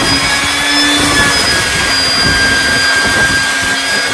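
Shop vacuum running with a steady high motor whine and rushing air, its hose held to bolt holes in a fibreglass deck.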